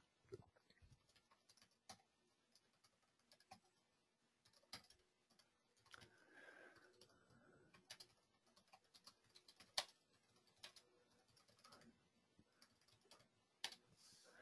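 Faint, irregular computer keyboard typing with scattered mouse clicks.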